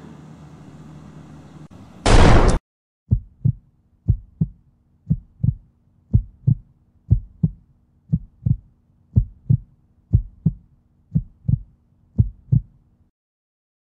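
Ambient music fades, then a single loud gunshot about two seconds in. It is followed by a heartbeat sound effect: about ten lub-dub double beats, one a second, over a faint low hum, stopping near the end.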